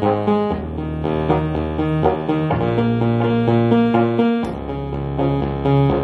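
Electronic keyboard played live: repeated chords over held bass notes, the harmony changing about every two seconds, with a short break in the bass and a faint click about four and a half seconds in.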